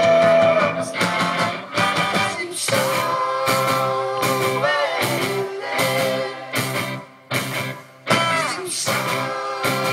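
Live rock band playing with electric guitars, keyboard and brass over a steady beat, with singing. The music breaks off sharply twice for a moment about two-thirds of the way through.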